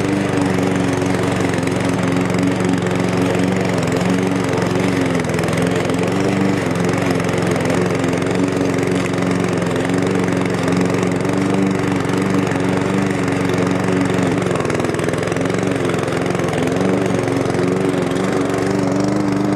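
Cobra MX460 SPC petrol rotary mower's 144cc engine running steadily under load while cutting grass and collecting it into the grass box.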